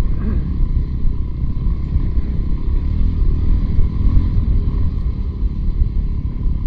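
Motorcycle riding on a dirt track: the engine runs with a rising and falling pitch under a heavy, steady wind rumble on the microphone.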